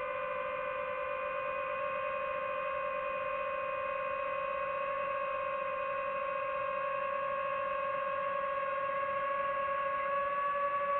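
DJI FPV drone's motors and propellers whining steadily in flight, holding an almost constant pitch that edges up slightly near the end.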